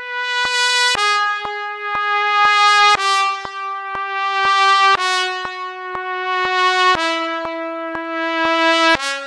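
B-flat trumpet playing the E-flat blues scale descending, one held note about every two seconds, each a step lower, reaching the low E-flat near the end. A steady click ticks twice a second underneath.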